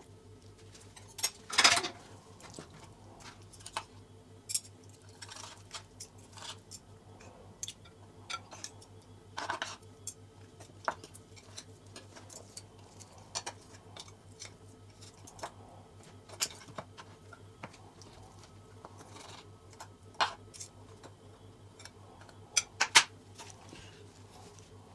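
Metal fork and knife clicking and scraping against a cooked beef marrow bone and wooden board as the meat is pulled off, in irregular light taps with a few louder clacks, the loudest about two seconds in and near the end.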